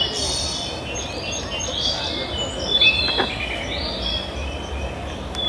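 Recorded birdsong played over the show's loudspeakers: a run of short, high chirps and little trills.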